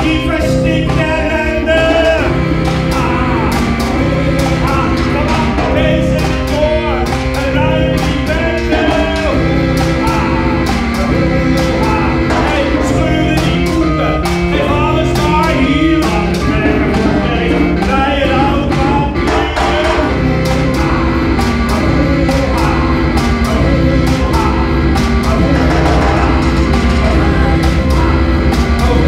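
Loud live rock-style music: a man sings into a hand microphone over a steady driving beat and a stepping bass line.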